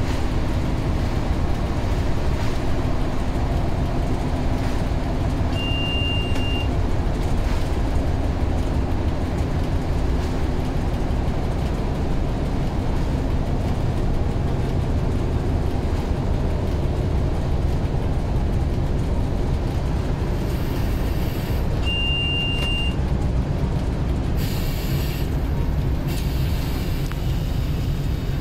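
Cab of an M62 diesel locomotive running light at speed: its two-stroke V12 diesel engine runs steadily under the clatter of wheels on rail. A short high beep sounds twice, about sixteen seconds apart, and a brief hiss comes near the end.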